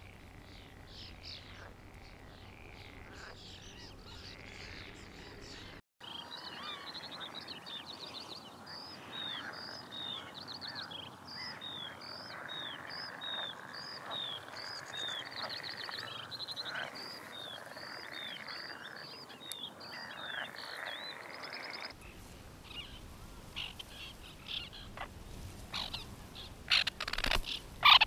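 Birds calling in a reedy marsh: a long run of short rising-and-falling chirps, about one or two a second, over a steady background chorus. Near the end come a few loud, harsh calls.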